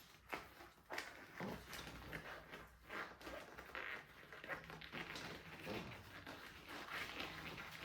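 Irregular clicks, taps and short rustles of things being handled, coming every fraction of a second.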